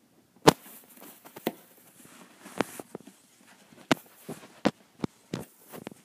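Hands weaving and tugging quilted fabric strips over a box form: soft fabric rustling broken by about eight sharp taps and clicks, the loudest about half a second in.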